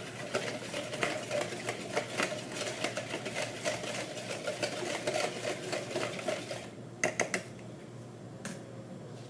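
Wire whisk beating a liquid marinade in a bowl: rapid, steady clicking of the whisk against the bowl that stops about six and a half seconds in, followed by a few separate taps.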